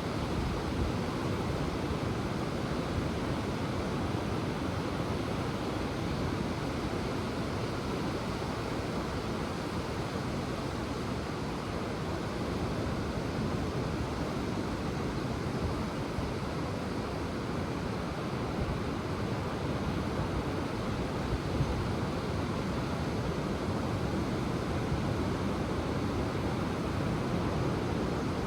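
Ocean waves washing onto the shore in a steady, even wash of surf, with some wind on the microphone.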